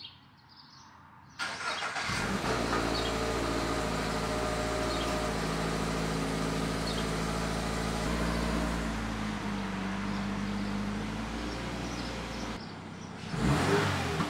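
2022 Subaru BRZ's 2.4-litre flat-four, on its factory stock exhaust, cranks and starts about a second and a half in, then idles steadily. There is a brief louder burst near the end.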